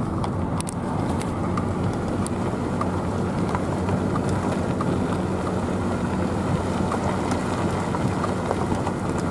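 Vehicle engine running, heard from inside the cab: a steady low hum with a few faint clicks.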